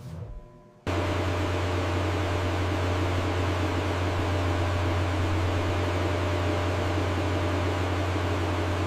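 Steady machine hum with a deep drone and an even hiss. It starts suddenly about a second in and cuts off abruptly.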